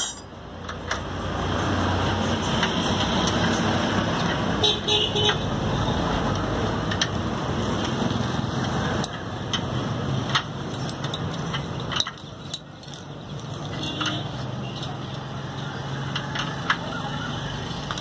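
Steady road-traffic noise from passing motor vehicles, with a vehicle horn sounding briefly about five seconds in and a few light clicks.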